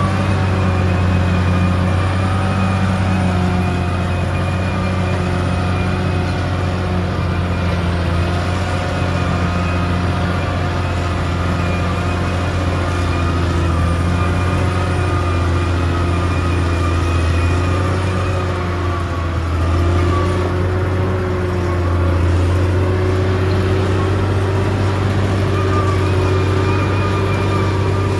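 Caterpillar D6R XL bulldozer's diesel engine running steadily with a low drone, its pitch dipping and rising slightly as it works.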